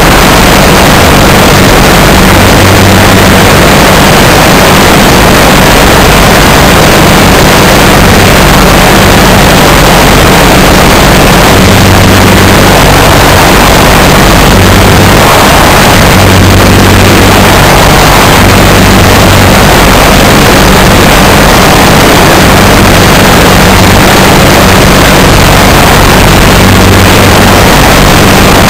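Legal Eagle ultralight's engine and propeller running steadily in flight: an even low drone under a loud rushing noise, picked up by a camera mounted on the airframe.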